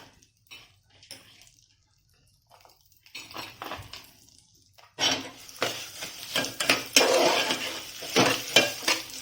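A spoon stirring roasted broken-wheat lapsi with peanuts and raisins in a cooking pot: a few soft clinks and rustles at first, then from about five seconds in loud, fast scraping and clattering of the spoon against the pot.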